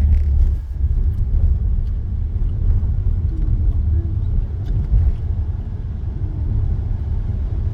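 Road traffic making a steady low rumble as vehicles move off.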